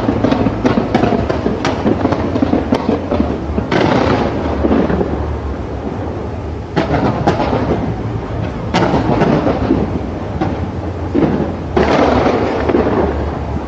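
Fireworks display going off: a continuous run of booms and crackle, with heavier surges of bursts about four seconds in, midway, and near the end.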